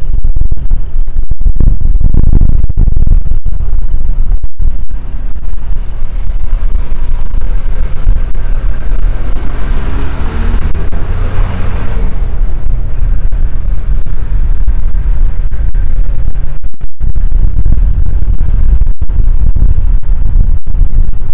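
Steady low rumble of road traffic, swelling as a vehicle passes about ten to twelve seconds in.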